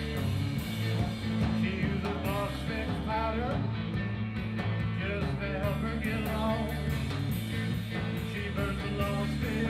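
Live rock and roll band playing: electric guitar and drums over a heavy, steady low end.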